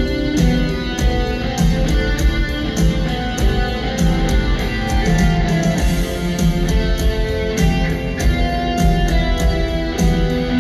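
Live rock band playing an instrumental passage: electric guitar notes over bass and a steady drum beat, through the arena's loudspeakers.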